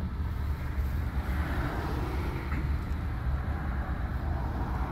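Steady road and engine rumble heard inside a moving car's cabin, with a rushing hiss that swells a little about a second in.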